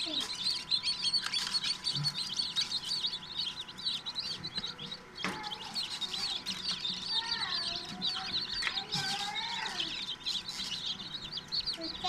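A trayful of newly hatched chicks peeping continuously, dozens of high-pitched cheeps overlapping. A few lower, longer gliding calls stand out about two-thirds of the way through.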